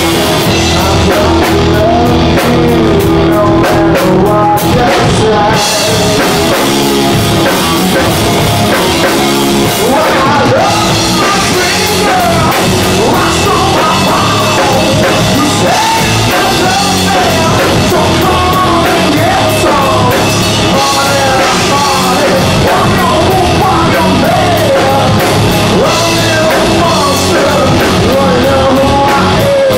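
A live rock band playing loudly: distorted electric guitars and a drum kit, with a male lead singer singing over them.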